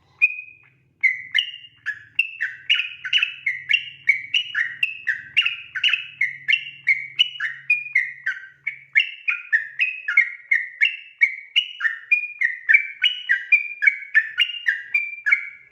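Sooty-headed bulbul (trucukan) singing a long unbroken run of quick whistled notes, about three a second, starting about a second in. This rapid continuous song is what bird keepers call 'ropel'.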